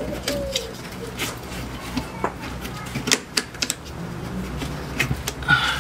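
Hard plastic clicks and knocks as a plastic trim bracket at the BMW engine bay's windscreen cowl is worked loose and unclipped by hand. A dove coos briefly at the start.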